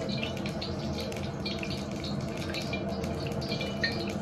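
Water dripping and trickling in small scattered drops as the steaming water is drained off a plate of freshly steamed tofu, over a steady low kitchen hum.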